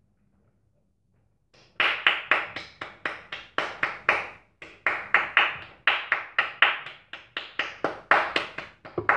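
One person clapping their hands close by, applauding: a sharp, steady run of claps at about four a second that begins a couple of seconds in.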